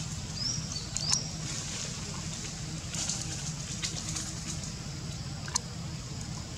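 Outdoor ambience under a steady low rumble, with two quick rising chirps in the first second and a few sharp clicks and rustles scattered through.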